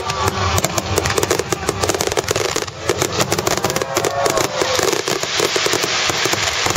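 Large aerial firework shells bursting in a dense rapid barrage, the bangs following one another too fast to count and overlapping without a pause.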